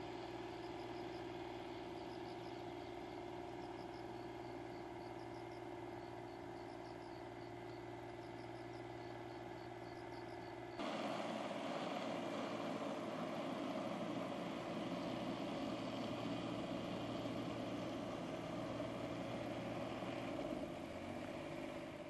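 Engine of a small construction machine running steadily, louder and fuller from about halfway in. Before that, a quieter steady engine hum with faint, repeated high chirping over it.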